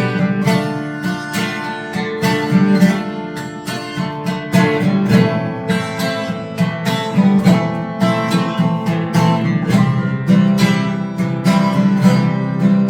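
Acoustic guitar strumming chords in a steady rhythm, an instrumental passage of a song with no singing.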